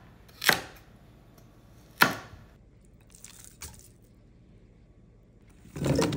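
Chef's knife chopping through carrots on a wooden cutting board: two sharp chops, the first about half a second in and the second at two seconds. Near the end, a short clatter of peeled potato chunks dropping into a stainless steel pan.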